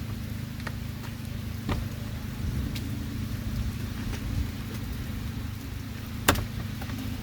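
Light rain with the steady low hum of an idling car engine. A few sharp taps stand out, the loudest about six seconds in.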